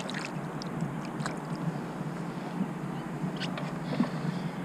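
Scattered light knocks and clicks of gear being handled on a fishing kayak, over a steady low hum.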